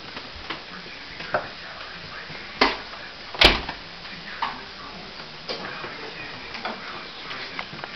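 Footsteps on a hardwood floor, uneven, about one a second, with a sharper, louder knock about three and a half seconds in.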